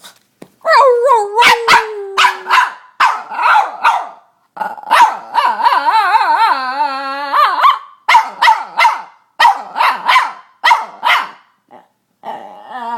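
Boston terrier barking and squealing: a drawn-out falling squeal about a second in, a run of short sharp barks, a long wavering howl-like call in the middle, then another run of short barks.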